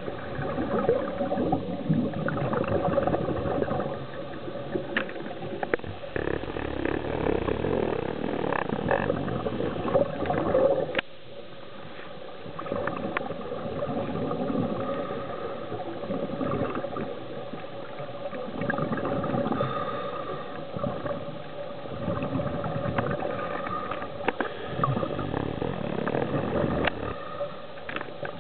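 Muffled underwater sound picked up by a camera below the surface: a steady rush of water noise with a faint hum, swelling and easing every few seconds, and scattered sharp clicks.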